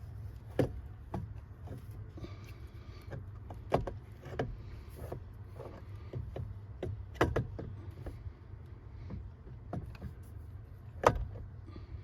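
Scattered clicks and knocks of metal parts being handled as the steering assist motor is worked back onto the steering column over a new rubber coupler, the sharpest knocks just under 4 s in, about 7 s in and near the end. A steady low hum runs underneath.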